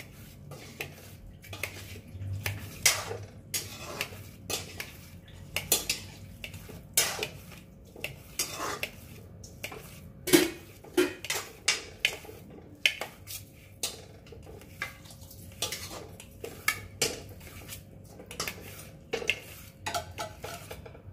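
Kitchen knife slicing a rolled fried-egg omelette into thin strips on a stainless steel plate, the blade clicking against the metal with each cut, irregularly about one or two times a second.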